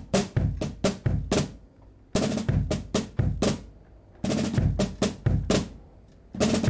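Muted acoustic drum kit played in short phrases of rapid snare and bass drum strokes. Each phrase stops for about half a second to a second before the next begins.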